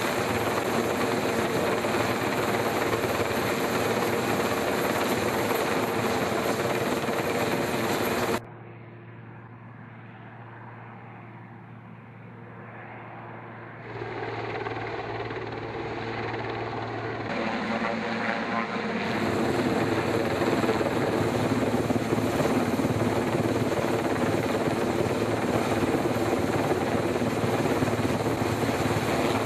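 Helicopter running steadily with a low, even hum. About eight seconds in the sound cuts abruptly to a quieter, duller stretch, then comes back in steps to full loudness by about nineteen seconds in.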